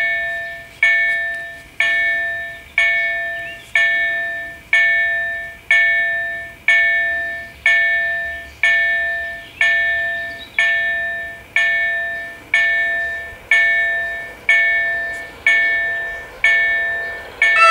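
Level-crossing warning bell striking steadily about once a second, each ring dying away before the next, warning of an approaching train. An electric multiple unit's horn sounds right at the end.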